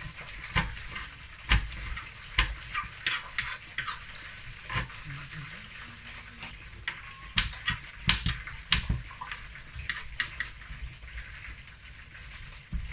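Kitchen knife chopping red bell pepper on a wooden cutting board: irregular sharp knocks of the blade against the board, about one or two a second.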